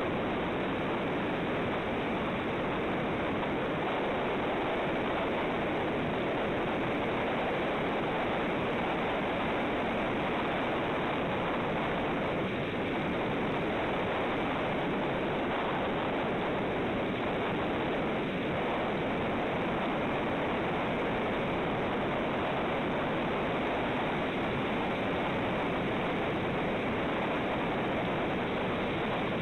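Steady, even rushing noise picked up by an outdoor nest-cam microphone above the sea, unchanging throughout.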